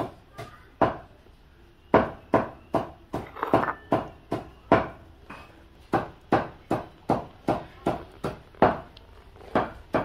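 A run of sharp knocks or chops, about two a second, each dying away quickly, with a short pause about a second in.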